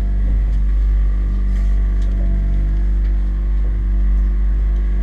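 Boat engine running at a steady, even drone with no change in speed.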